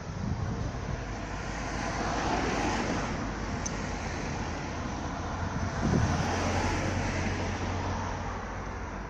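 Car engine running amid road traffic. The sound swells about two seconds in and more sharply about six seconds in, then settles into a steady low hum.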